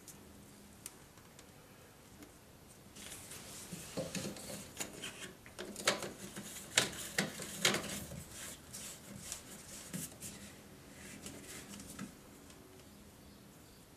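White plastic waste pipe fittings being handled and pushed together under a wash basin: a run of plastic clicks, knocks and scrapes, loudest in the middle, with a few soft taps before it.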